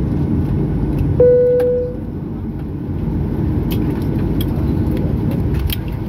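Steady low rumble inside a parked Boeing 737-800 airliner cabin. About a second in, a single cabin chime rings and fades within a second. A few faint clicks follow near the end.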